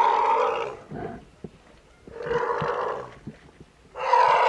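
Asian elephant calf giving three rough, roaring calls about a second long each, with quiet gaps between: the distress calls of a calf stuck in mud and being hauled out with ropes.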